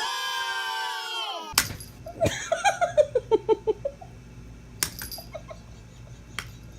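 A drawn-out high cry, sliding slightly down in pitch, that cuts off after about a second and a half. Then a burst of laughter, quick 'ha-ha' pulses falling in pitch, with a few faint knocks after it.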